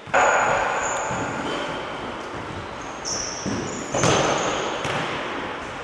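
Futsal ball kicked in an indoor sports hall: a sharp thump right at the start and another about four seconds in, each echoing around the hall, with short high squeaks in between.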